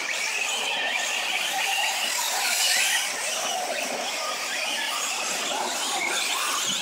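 Several radio-controlled 4WD short-course trucks racing on dirt. The high whine of their electric motors rises and falls in pitch as they accelerate and brake, over a steady hiss.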